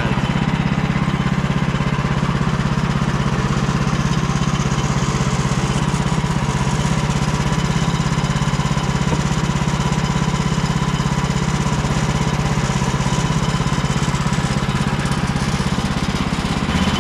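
Woodland Mills HM130 Max portable sawmill's gas engine running steadily.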